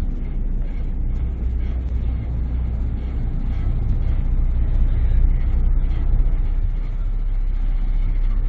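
A passenger ferry's engines running with a steady low rumble as the boat comes alongside a wharf, a little louder around the middle.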